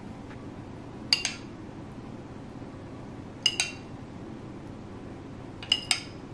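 Utensil clinking against dishes: three pairs of sharp, ringing clinks, about two seconds apart.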